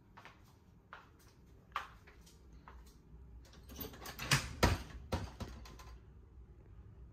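Wooden louvered window shutters being unlatched and swung open: a few light clicks, then a quick run of louder clicks and wooden knocks, loudest about four and a half seconds in.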